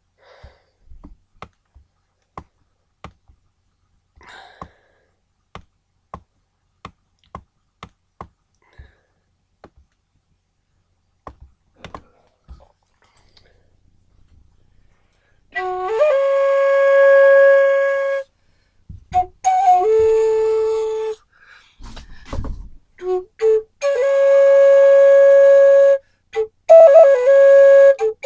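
A string of faint, evenly spaced clicks, then from about halfway a flute playing long held notes in short phrases, with brief breaks between them.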